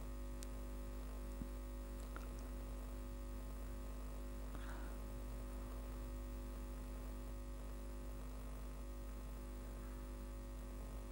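Steady electrical hum over a faint even hiss, with a couple of faint clicks in the first two seconds.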